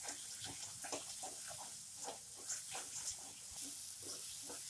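A flat spatula scraping and stirring thick tomato-spice masala as it fries in oil in a non-stick kadhai, in quick repeated strokes over a faint sizzle. The masala is being stirred without pause while it fries, so it does not catch on the bottom of the pan.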